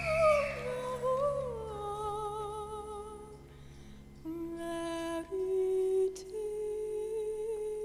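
A woman's voice singing slow, held notes with vibrato, with little accompaniment: the line slides down in pitch about a second in and ends on a long, steady held note.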